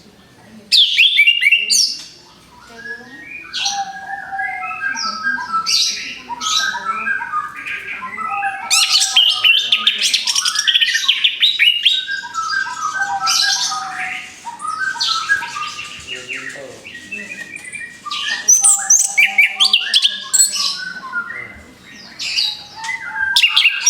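Orange-headed thrush (anis kembang) singing a long, varied song of quick whistled phrases, trills and sweeping notes, with a few brief pauses.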